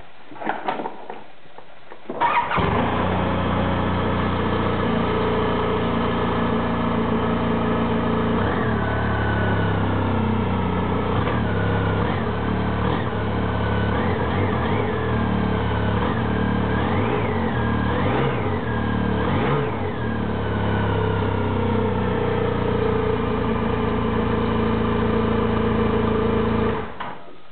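2007 Polaris FST Switchback snowmobile's turbocharged four-stroke twin on its stock exhaust. It starts about two seconds in and runs at idle, with a few quick throttle blips in the middle, then shuts off near the end.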